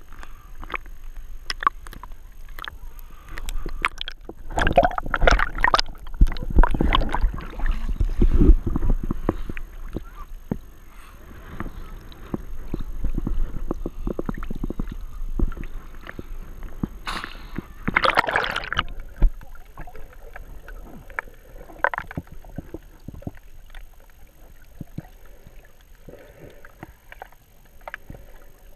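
Water sloshing and splashing around a GoPro's waterproof housing as it bobs at the surface and dips under, with many small knocks against the case and a louder splash about eighteen seconds in.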